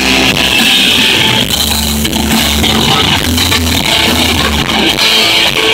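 Live rock band playing loudly: two electric guitars over a drum kit, with a steady beat.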